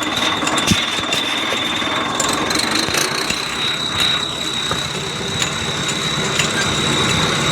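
Tractor engine running with an add-on turbo whistle device fitted, giving a steady, thin high whistle over the engine noise.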